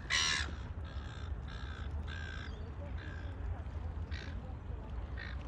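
Wild birds calling: one loud, harsh call at the start, then a string of shorter, fainter calls roughly once a second.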